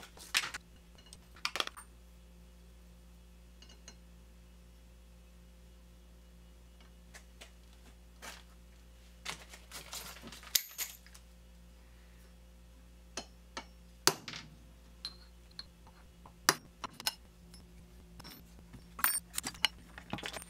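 Small metallic clinks as steel transfer punches are pulled from their plastic holder and tried in the bracket's holes, then a few sharp taps on a transfer punch marking the three mounting-hole positions onto an aluminium part. A steady low electrical hum underneath.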